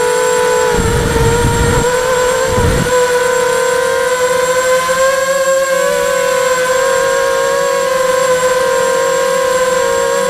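Electric motors and propellers of a hovering radio-controlled multirotor, heard through its onboard camera: a steady droning hum with a thin high whine above it, the pitch wavering slightly. Wind buffets the microphone briefly about a second in and again just before three seconds.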